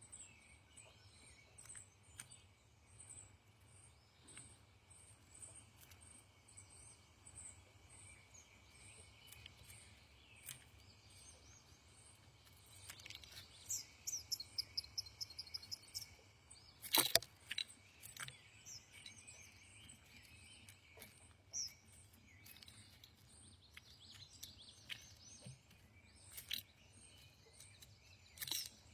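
Songbirds calling outdoors over a steady high background hum, with faint regular ticks above it. About halfway through comes a fast run of repeated high notes, a trill, followed by one sharp click, the loudest sound. Short chirps are scattered through the rest.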